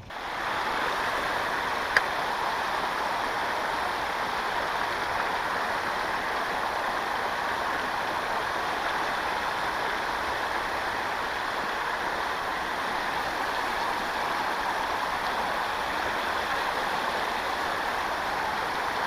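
Creek water rushing steadily, with one sharp click about two seconds in.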